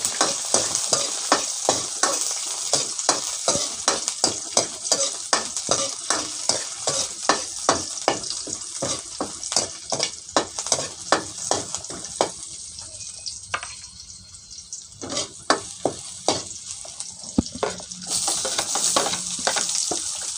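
A metal ladle scraping and knocking against an aluminium wok, about two to three strokes a second, over food sizzling in hot oil. The strokes thin out for a couple of seconds past the middle. Near the end the sizzle grows louder as sliced onions go into the pan.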